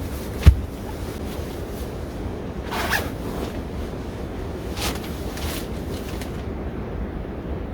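Steady low rumble with one sharp, loud knock about half a second in, then a few short rasping, rustling sounds, the longest about three seconds in.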